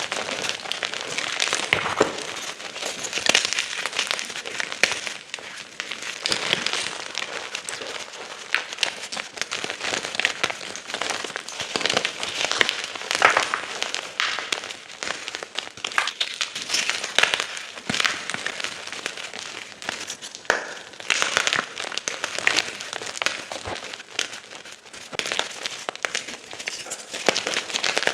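Gym chalk being crunched and crumbled: a steady stream of dry crunching and crackling, with louder crunches every second or so.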